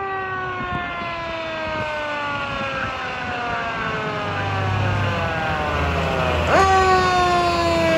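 Siren on a 2007 Seagrave Marauder fire engine, its pitch sliding slowly downward, then jumping sharply back up about six and a half seconds in and starting to fall again. The truck's engine rumbles low underneath as it pulls closer.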